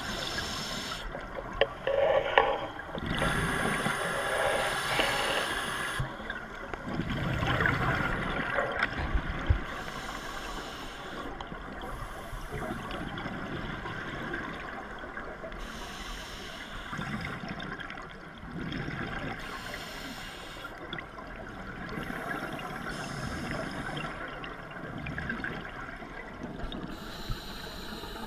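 Underwater scuba breathing: regulator exhaust bubbles gurgling past in bursts every few seconds, with a softer rushing noise between them.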